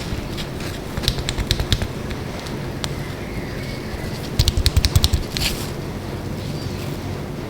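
Mechanical keyboard switches on a hot-swap keyboard clicking and clattering in two quick clusters, about a second in and about four and a half seconds in, over steady background noise.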